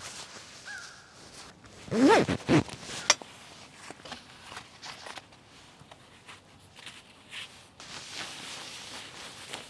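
Nylon jacket fabric rustling as a down jacket and a hard shell are pulled on, with a zipper run up sharply about two seconds in and a single sharp click a second later.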